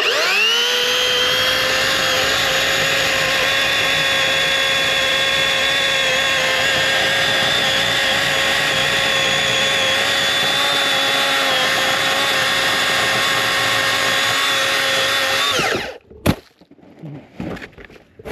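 Cordless 80-volt electric chainsaw with the trigger held: a steady high motor-and-chain whine that spins up at the start, runs for about fifteen seconds and winds down as it is released. A sharp knock comes just after it stops.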